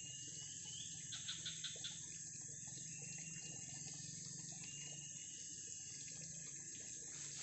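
Water trickling in a shallow forest stream, over a steady high insect drone, with a few short chirps and a brief run of clicks about a second in.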